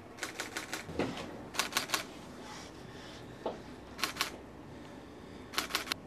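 Camera shutters clicking in four quick bursts of two to five shots each, as for a posed group photo. A dull knock sounds once about a second in.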